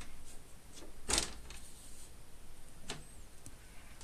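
Aluminium side panel of a Power Mac G5 being unlatched and lifted off the case: a loud scrape about a second in, then a few light clicks near three seconds.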